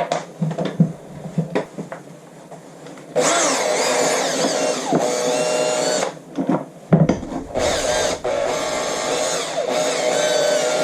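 A few handling clicks and knocks, then, about three seconds in, an electric drill spinning a brush bit to scrub dirt off a motorcycle handlebar switch housing. It runs in two long stretches with a short stop about six to seven seconds in.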